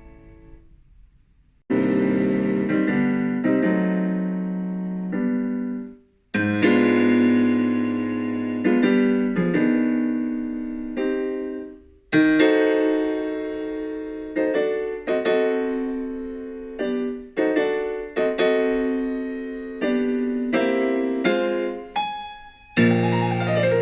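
Background piano music, chords struck one after another and left to ring and fade, with brief breaks about six and twelve seconds in.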